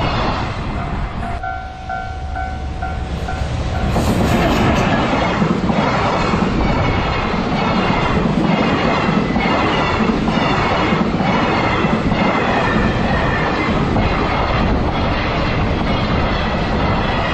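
Freight train behind a JR Freight EF210 electric locomotive passing: wagon wheels rumble and clack over the rail joints in a regular beat, with some high wheel squeal. A brief pulsing ringing tone sounds in a quieter stretch near the start, before the train noise grows loud about four seconds in.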